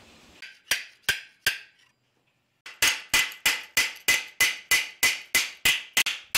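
Small hammer striking a metal overlay strip on an anvil, forming it around a wooden handle core. Three blows, a short gap about two seconds in, then a steady run of about three blows a second, each with a bright ring.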